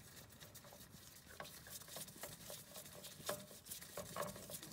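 Faint, irregular clicks and scrapes of hands turning a spin-on oil filter loose from a Polaris RZR 570 engine.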